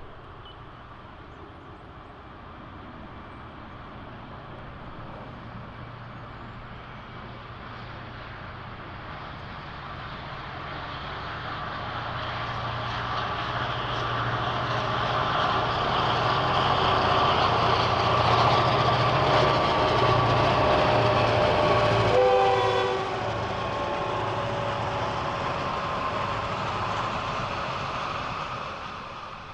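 Two T-class diesel-electric locomotives approaching and passing with a train in tow, their engines growing louder over the first two-thirds. About three-quarters of the way in, the steady tones of the locomotives drop in pitch and the sound falls away as they go by. The trailing railcars' wheels then roll past on the rails.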